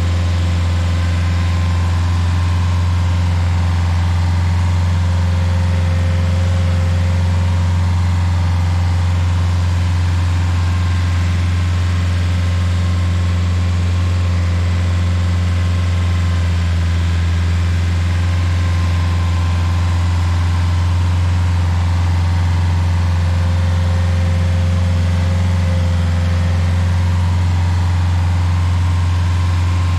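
Rayco RG50 stump grinder's engine running at a steady speed, a loud, unchanging low drone.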